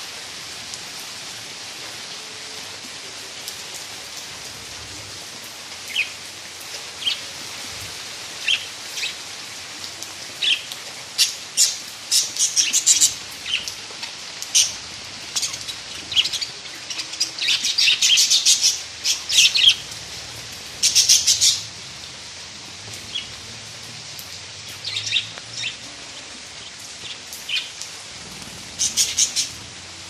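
A flock of budgerigars chirping in short, high calls that come in clusters, busiest in the middle, over a steady hiss of rain.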